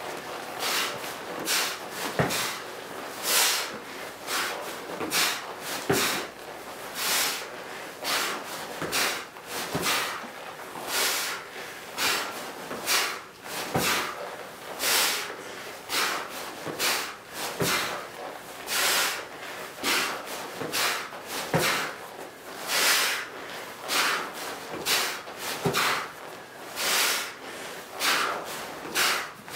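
A man breathing heavily and forcefully, about one hard breath a second, while doing squat thrusts under a 100-pound rucksack. A soft thump comes every few seconds as a rep lands.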